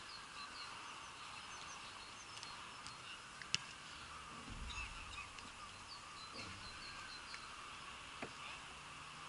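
Faint outdoor ambience with small birds chirping in many short notes, under a faint tone that slowly rises and falls. One sharp knock sounds about three and a half seconds in.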